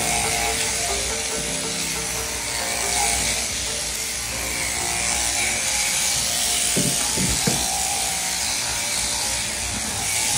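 Sheep-shearing handpiece buzzing steadily as its comb and cutter run through a Cheviot ram's fleece, with music playing along. A few short knocks come about seven seconds in.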